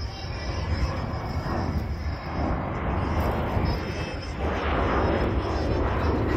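Jet airliner engines: a broad rushing sound with a deep rumble underneath, growing steadily louder.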